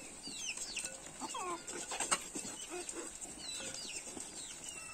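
Ducks and chickens feeding from a bowl of grain: faint scattered high chirps and a few lower clucking calls, with small clicks of pecking throughout.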